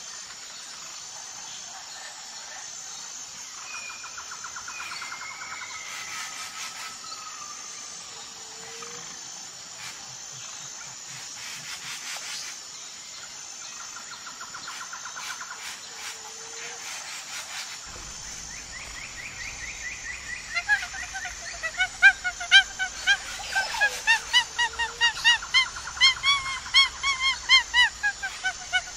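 Forest ambience: a steady high insect buzz with faint bird trills and chirps. About two-thirds of the way through it cuts to a loud, rapid run of high, pitched calls that rise and fall, from a group of hamadryas baboons.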